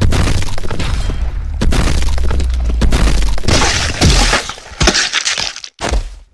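Fight sound effects for an animated monster battle: dense crashing and smashing with a low rumble underneath, then three or four separate smashes with short gaps near the end.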